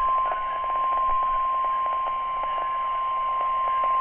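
NOAA Weather Radio's 1050 Hz warning alarm tone: one steady, unbroken high-pitched tone over a hiss of radio static with faint crackles. It is the signal that sets off alert receivers and announces that a warning or watch message follows.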